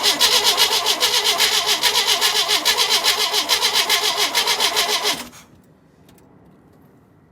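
Starter cranking a 1988 Sea Ray's MerCruiser engine with an even, rapid rhythm for about five seconds. The engine does not catch, and the cranking stops suddenly: a no-start that the owner suspects comes from lost compression.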